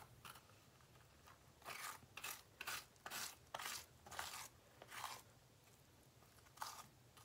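Faint scraping of baked spaghetti squash flesh out of its shell into strands: a run of about a dozen short scratchy strokes, roughly three a second, with one more stroke near the end.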